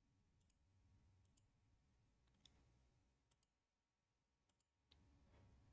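Near silence: faint room tone with a handful of scattered faint clicks, the sharpest about two and a half seconds in.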